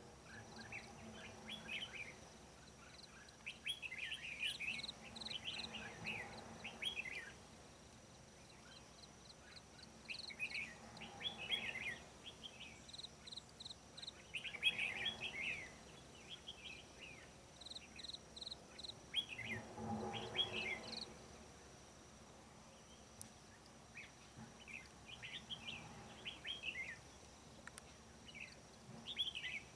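Red-whiskered bulbuls singing: short, bright warbled phrases, several a second, in bouts with pauses of a few seconds between them, over a thin steady high-pitched tone.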